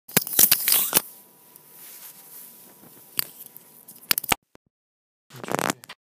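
Strong wind buffeting the microphone in crackling bursts, loudest in the first second, with a few sharp clicks; the sound cuts out for about a second near the end.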